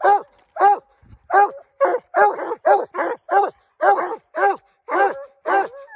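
Bear hounds bawling a steady treed bark at the foot of a tree, about two barks a second, some overlapping: the call that says the bear is up the tree.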